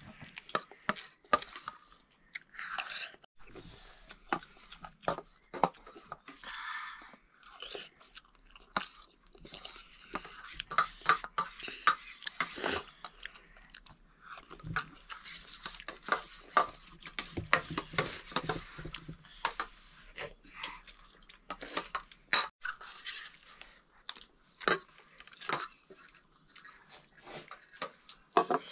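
People chewing a meal of rice, lentils and pickle close to the microphone, with many short, irregular clicks.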